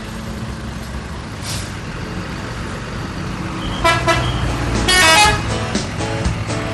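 Bus 'telolet' horn, a multi-tone musical horn, sounding two short loud blasts about a second apart over the steady running noise of a bus engine and traffic.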